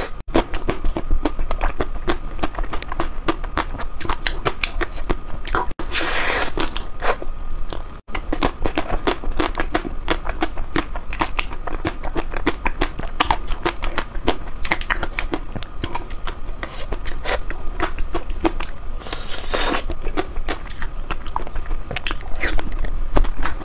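Close-miked chewing of ice cream: a dense run of wet crunching and crackling mouth sounds, with two longer hissing slurps, one about six seconds in and one near twenty seconds.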